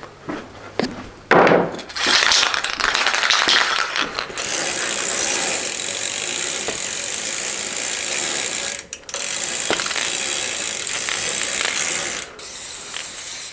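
Dry, rusty bicycle freewheel ratcheting its pawls as the rear wheel spins, while an aerosol can of Tri-Flow lubricant hisses into it for several seconds, with a short break about two-thirds through.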